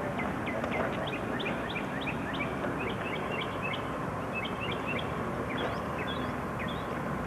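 Small birds chirping, a quick run of many short, high notes, over a steady rushing outdoor noise.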